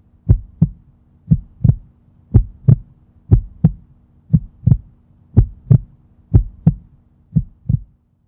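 Heartbeat sound effect: a steady double thump, lub-dub, about once a second, over a faint steady hum.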